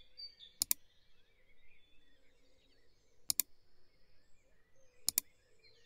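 Three sharp double clicks of a computer mouse, about three and then two seconds apart, over a faint dawn chorus of birdsong.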